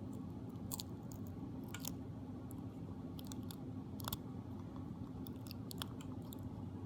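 Adhesive tape being peeled off inside an opened iPod: scattered small crackles and ticks, a few at a time, over a steady low hum.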